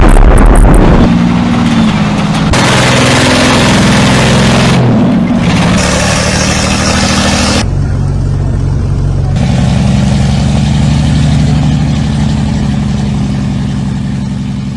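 Heavy vehicle's engine running loudly. Its pitch rises and falls over the first few seconds, then it settles into a steady run.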